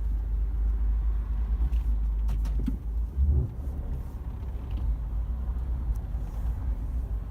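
Road and engine rumble inside the cabin of a moving 2018 Mercedes-Benz A-Class, with a few light clicks and one low thump about three seconds in. With the rear seats folded flat, the creaking usually heard from them is absent.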